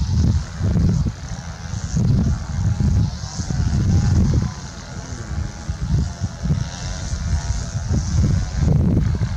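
Jet airliner engine noise, mixed with wind buffeting the microphone in an uneven low rumble that swells and falls.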